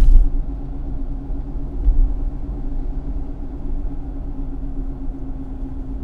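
Steady low rumble of a car driving, engine and tyre noise heard from inside the cabin, with a steady hum running under it. A loud low thump right at the start and a smaller one about two seconds in.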